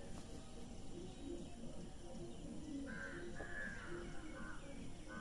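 A bird giving a few harsh calls, starting about three seconds in and ending near the close, over steady faint outdoor background noise.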